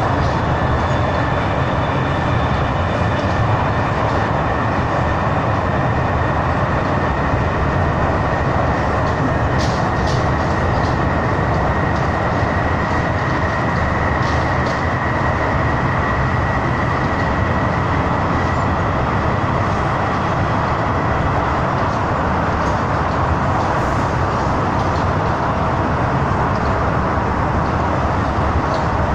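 MTR Mid-Life Refurbished Train, a Metro-Cammell electric multiple unit, running at speed, heard from inside the passenger car. Steady wheel-and-rail running noise with a steady high tone that grows a little stronger around the middle, and a few faint clicks around ten seconds in.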